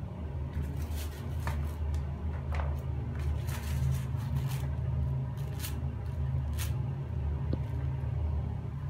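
Plastic scrub brush scrubbing plastic toy animals in a basin of soapy foam: irregular scratchy brush strokes and wet squishing, over a steady low hum.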